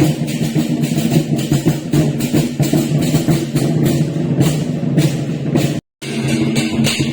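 Loud music with drums and percussion beating steadily. It cuts out completely for a moment about six seconds in, then resumes.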